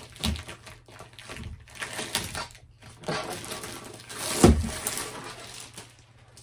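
Rustling of a rolled diamond painting canvas and its paper wrapping being handled on a table, in several short bursts, with one louder knock a little past halfway as the roll is set down.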